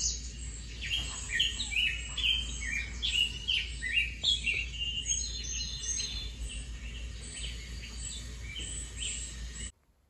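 Birdsong from a wildlife video played through a TV's speakers: many quick chirps and twittering calls from several birds. It cuts off suddenly near the end.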